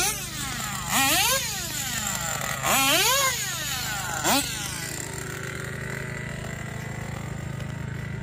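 An RC drag car's motor is revved in about four short blips, its whine sweeping up in pitch and back down each time. After about five seconds it settles into a steady hum.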